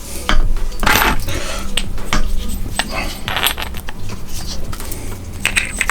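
Small metal parts clinking and knocking against each other and a hard surface, with the loudest clink about a second in and several more spread through, over a steady low hum.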